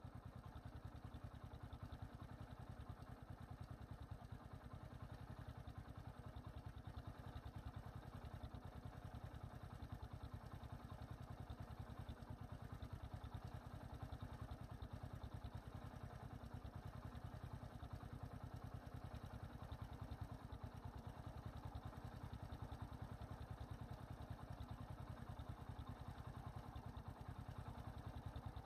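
A vehicle engine idling steadily, a faint, rapid low throb with no change in speed.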